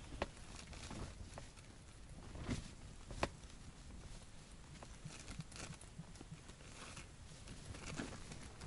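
Faint handling noise from a small winter jigging rod held in a gloved hand: soft rustling and a few scattered sharp ticks, the sharpest about three seconds in.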